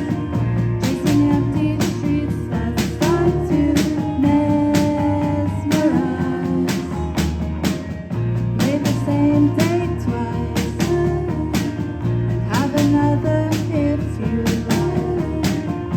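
A rock band playing live: guitar and drums over a steady beat, with singing.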